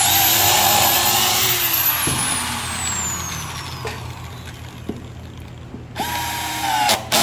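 Corded electric drill running at speed, boring a hole into a wooden bookshelf panel, then winding down with a slowly falling whine. About six seconds in, a cordless drill-driver runs for about a second, driving a screw into the wood.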